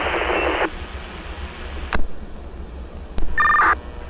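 Two-way fire radio heard through a handheld scanner between voice messages. A burst of static hiss cuts off about half a second in, and a sharp click comes at about two seconds. Another click about three seconds in is followed by a short two-tone data chirp, the kind a radio sends as it keys up, all over a steady low hum.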